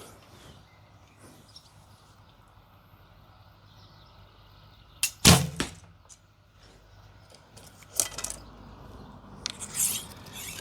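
Recurve bow with Nik'a S2 Windstorm ILF limbs shooting an arrow: a single sharp thump of the string's release about halfway through, the loudest sound. Lighter clicks and rattles of arrows being handled follow.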